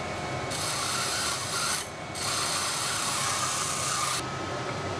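Motor-driven grinding wheel running while a steel kanna (Japanese plane) blade is ground on it. A loud hiss of grinding starts about half a second in, breaks briefly near two seconds, and stops a little after four seconds, leaving the motor running.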